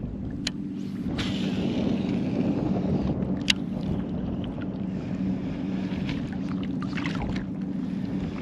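Steady low motor hum under wind and water noise, with two sharp clicks, one about half a second in and a louder one about three and a half seconds in.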